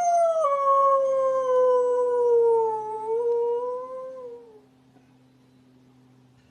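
A dog howling: one long howl that slides steadily down in pitch, drops abruptly once about half a second in, lifts slightly near the end and fades out about four and a half seconds in.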